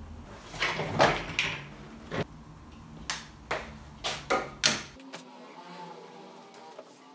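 A run of short knocks and rustles, like objects and cloth being handled, loudest about a second in, with about a dozen sharp knocks over the first five seconds; after that it goes quieter.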